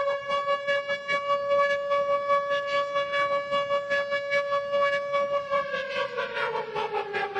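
A siren-like wailing tone that holds one steady pitch, then winds down in pitch from about five and a half seconds in, over a fast, regular pulsing.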